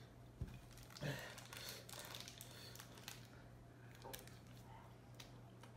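Faint crinkling of a chocolate bar's plastic wrapper as it is handled and opened, in a few short spells, with a single click just under half a second in.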